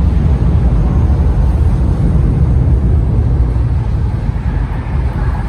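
Steady low rumble of city street traffic as cars drive through an intersection.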